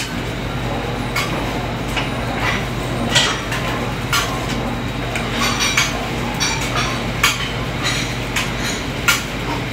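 Busy commercial kitchen line: a steady low hum and rush, as from the range ventilation, with scattered sharp clinks and knocks of metal utensils against pans and dishes, about one or two a second.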